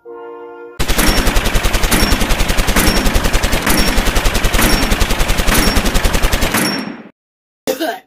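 Brass music is cut off about a second in by a long, rapid burst of machine-gun fire, an even string of shots lasting about six seconds that stops suddenly.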